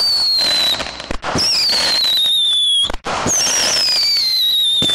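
Whistling fireworks going off one after another: three shrill whistles, each falling in pitch over about a second and a half, over a crackling hiss.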